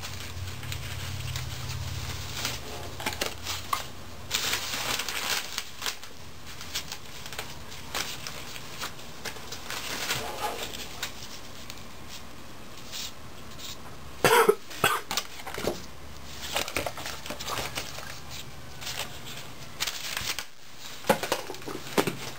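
Handling noises from gloved hands working a speed sensor out of an automatic transmission case: rustling and scattered small clicks and knocks, with a sharp, louder knock about 14 seconds in.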